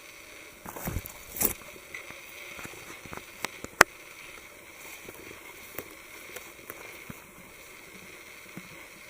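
Scattered rustles and crunches of footsteps on a jungle trail, with a sharp click about four seconds in, over a faint steady hiss.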